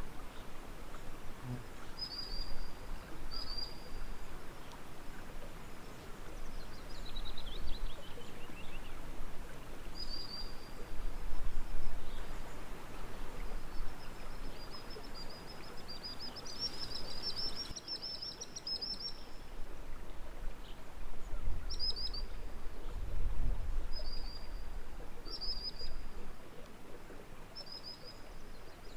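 Birds singing: short high chirps repeated every few seconds, a falling run of notes, and a quicker twittering phrase partway through, over a steady low background rumble.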